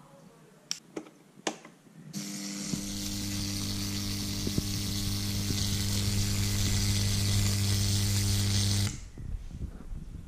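Stacked-disc spark gap fed by a high-voltage transformer, switched on about two seconds in: a loud, steady mains buzz with a hissing crackle of sparks jumping between the discs, cutting off suddenly near nine seconds. A few sharp clicks come before it.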